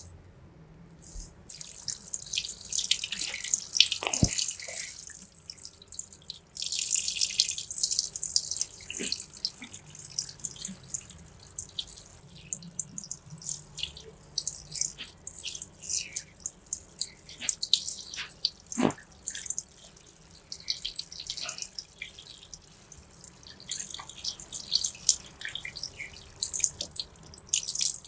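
Handheld shower sprayer running, water spattering onto a face and into a shampoo basin as facial cleanser foam is rinsed off. It starts about a second and a half in, comes and goes with the hand's movement, and two sharp knocks are heard along the way.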